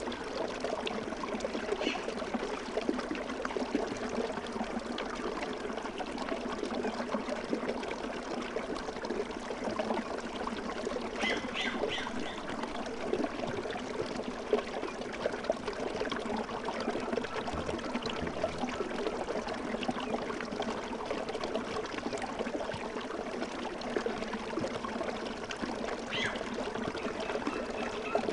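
Steady trickling stream water, a gentle brook used as a sleep ambience. A few faint bird chirps come through, most clearly about twelve seconds in.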